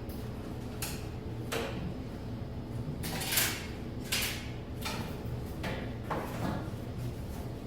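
A series of short scrapes and knocks, about seven in all, the longest and loudest about three seconds in, over a steady low hum.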